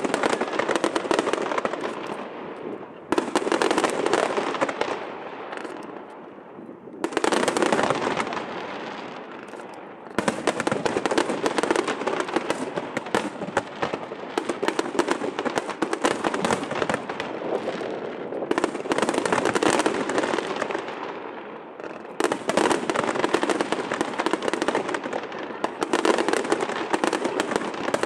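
Aerial fireworks display: continuous volleys of shell bursts and crackling. Fresh barrages start about three, seven, ten and twenty-two seconds in, each dying away before the next.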